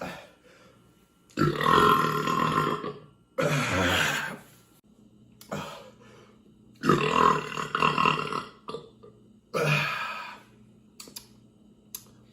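A series of four long, loud burps from drinking a highly carbonated stout, beginning about a second and a half in.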